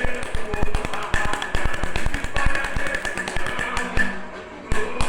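Samba tamborims playing a fast, tightly syncopated rhythmic pattern of sharp, dry strikes over the deeper drums of the percussion section. Near the end the strikes stop briefly, then start again.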